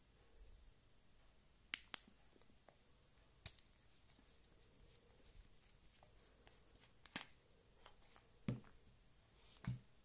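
A small zoomable LED flashlight handled and taken apart: about six sharp clicks and light knocks as its tail switch, tail cap and battery carrier are worked. The last two knocks, near the end, are duller, like parts set down on a towel.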